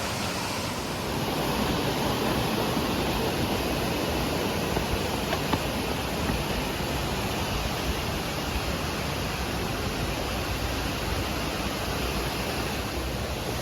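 A waterfall rushing steadily: an even, unbroken noise of falling water.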